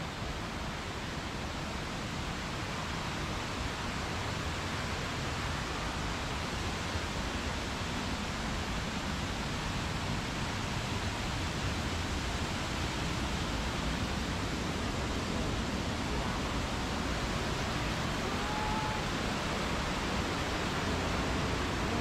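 Waterfall: a steady, even rush of falling water, growing slightly louder over the stretch.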